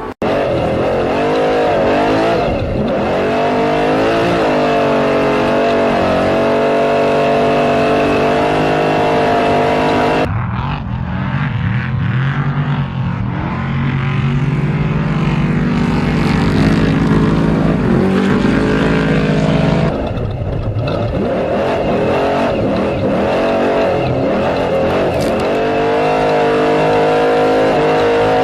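Off-road racing truck engines running hard at high revs, their pitch rising and falling with the throttle. The sound changes abruptly twice, about a third and two-thirds of the way through, to a lower-pitched engine drone and then back again.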